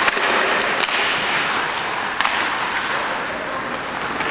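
Ice hockey play: several sharp clacks of sticks and puck in the first second and another about two seconds in, over steady rink noise of skates and players on the ice.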